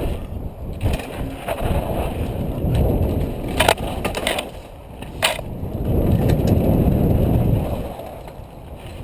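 Specialized Big Hit downhill mountain bike rolling fast over a dirt trail, heard from the rider's helmet: a rough rumble of tyres and wind on the microphone that fades twice, with a few sharp clacks as the bike rattles over bumps, the clearest about three and a half and five seconds in.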